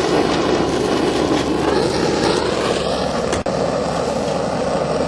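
Steady roar of a gas burner heating the soldering iron, with a brief drop about three and a half seconds in.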